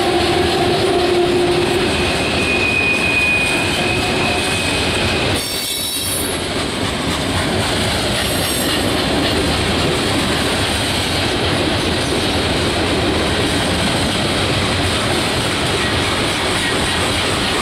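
Loaded coke hopper cars of a freight train rolling past close by: steady noise of steel wheels on rail, with a thin wheel squeal over the first few seconds.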